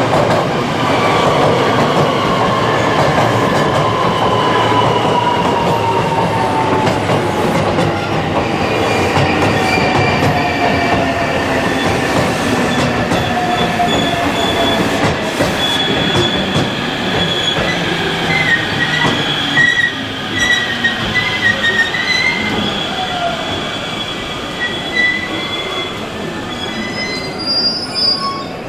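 JR West 225-series electric train pulling into a station platform and slowing to a stop. Its motor whine falls steadily in pitch over the running noise. Wavering wheel squeal comes in past the middle as it comes to a stop.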